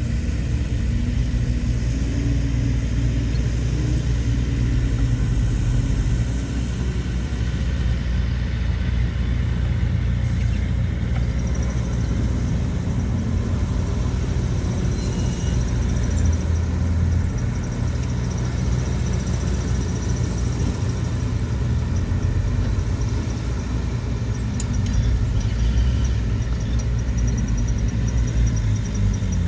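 Diesel engines of heavy earthmoving machinery (bulldozer and dump trucks) running under load, with a steady deep rumble.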